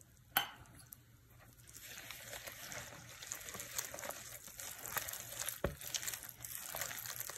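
Wire whisk stirring water into flour and hot sauce in a mixing bowl for batter: a faint, soft patter and scraping, with one thump about five and a half seconds in.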